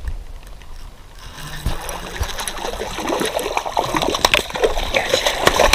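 A small hooked fish thrashing and splashing at the water's surface in the shallows as it is reeled in to the bank. The splashing starts about a second in and grows louder and busier toward the end.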